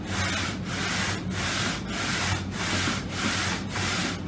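Sandpaper on a long straight edge drawn back and forth along the edges of two guitar top halves, jointing them for a glue-up: a rhythmic rasping scrape, about seven strokes at a little under two a second.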